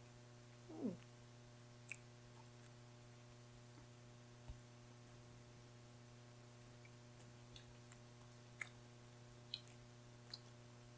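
Near silence over a steady low hum. Just under a second in there is a brief falling 'mm' from a voice, then a few faint, scattered clicks.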